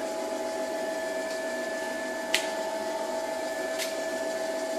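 Optimum Opti B23 Pro+ drill press running with no load, a steady motor and spindle whine with a high tone over it. Two light clicks come about two and a half and four seconds in.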